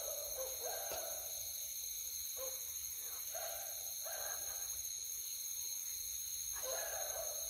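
Night-time animal calls in the wild: short mid-pitched calls of about half a second each, repeated irregularly every second or two, over a steady high-pitched insect drone.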